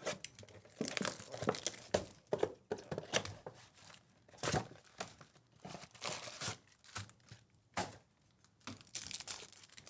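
Plastic wrapping and cardboard of a Topps Chrome trading-card box crinkling and tearing as it is opened by hand, in irregular crackling bursts, with the foil packs rustling as they come out.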